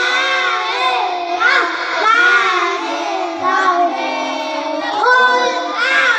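A group of young boys chanting in unison through microphones, reciting short Quranic surahs in a sung melody.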